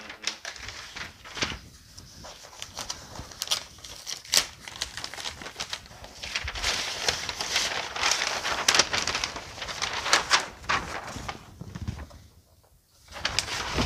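Brown kraft packing paper rustling and crinkling as it is unfolded and pulled back off a wrapped canvas print, full of small sharp crackles, with a short pause near the end.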